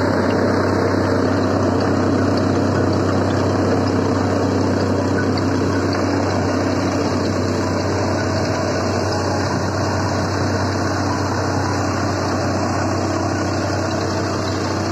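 Heavy rotary snowblower truck working through deep snow: a steady engine drone under load with a dense rushing noise from the cutter and the thrown snow, unbroken throughout.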